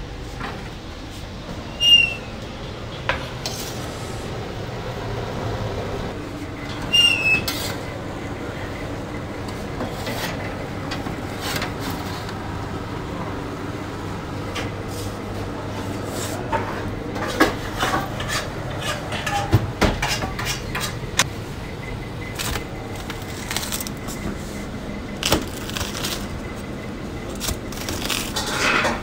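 Metal pizza pan and utensils clanking on steel: two sharp clangs with a short metallic ring, then a run of lighter knocks and clicks as the baked pizza is handled and cut, over a steady low hum.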